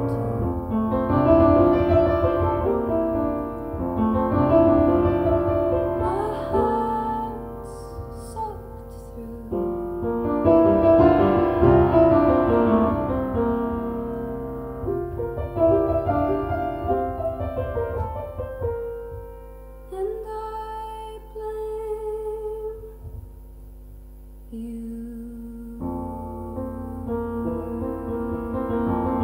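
Music led by piano or keyboard, with a thinner, quieter passage about two-thirds of the way through before the fuller sound returns.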